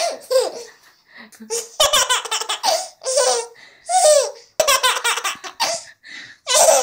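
A baby laughing in repeated high-pitched fits, each peal falling in pitch, with breathy gasps between them.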